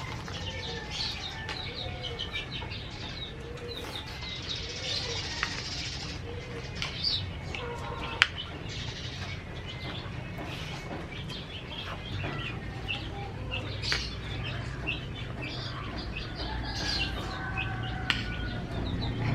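Small birds chirping: many short, quick chirps over a steady low hum.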